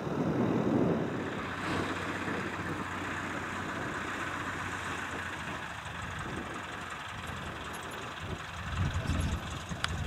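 Light single-engine propeller aircraft taxiing: its piston engine runs steadily at low power. Wind buffets the microphone near the end.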